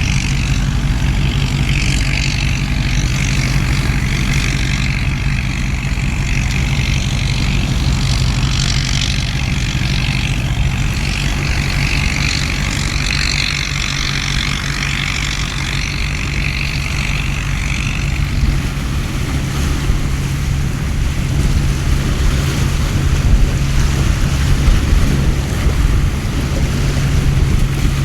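Heavy rain hissing over a steady low hum. The hiss eases about two-thirds of the way through, while the low rumble becomes gustier near the end.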